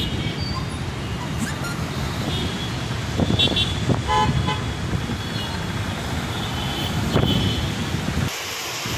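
Road traffic on a wet street: motorbikes, scooters and cars running past with short horn toots, the clearest about three to four seconds in. Near the end the traffic rumble drops away suddenly.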